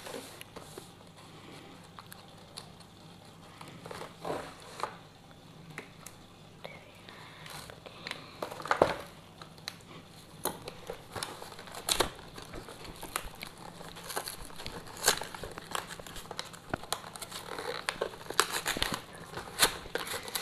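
Cardboard box being cut open with a small hand cutter and pulled apart: crinkling and tearing of cardboard with scattered sharp snips and clicks, more frequent in the second half.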